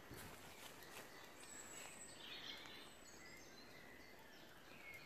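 Quiet woodland ambience with faint birdsong: scattered short, high chirps and whistled notes, more of them from about a second and a half in.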